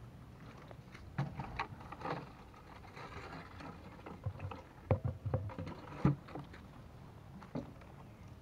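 A plastic water jug holding live fish and crabs being handled: scattered knocks and light splashing, the loudest knocks about five to six seconds in.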